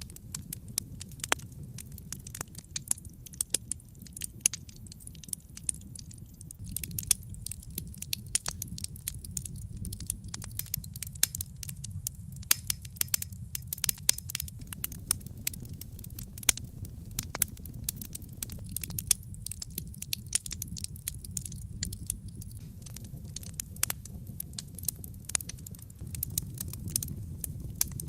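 Wood fire crackling in a fireplace: a steady low rumble of burning with frequent sharp crackles and pops scattered irregularly throughout.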